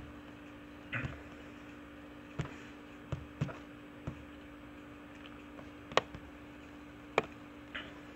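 Sparse, irregular sharp clicks and taps, about eight of them, the loudest about six and seven seconds in, over a steady low electrical hum.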